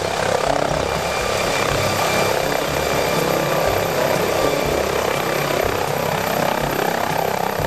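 MD Explorer helicopter hovering, its turbine and rotor running steadily with a low rotor throb underneath.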